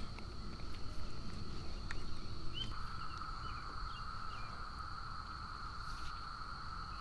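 Steady summer insect chorus from the shoreline trees: two even, unbroken drones at different pitches, the lower one growing louder about three seconds in. A few faint clicks from handling the fishing lure and line are heard over it.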